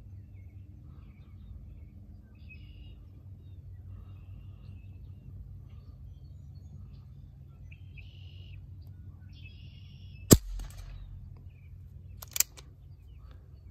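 A single sharp shot from a BARRA 1858 CO2 BB revolver about ten seconds in, then a lighter click two seconds later as the single-action hammer is cocked for the next shot. Birds chirp faintly over a low, steady outdoor background.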